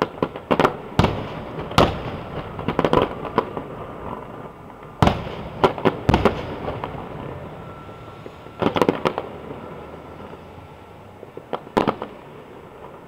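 Fireworks going off: sharp bangs, some single and some in quick crackling clusters, spaced a few seconds apart and thinning out near the end.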